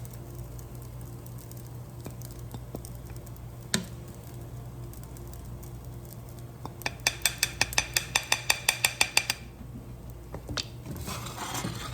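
Metal spoon clinking against a plate while fried rice is served: one clink, then a quick, evenly spaced run of sharp clinks lasting about two and a half seconds, over a steady low hum.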